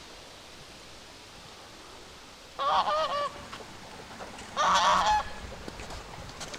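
Birds calling in two short bursts about two seconds apart, each a few overlapping calls, over a steady background hiss.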